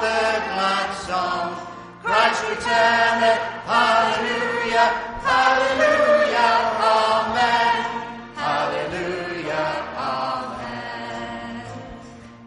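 Choral chanting in several sung phrases, fading out near the end.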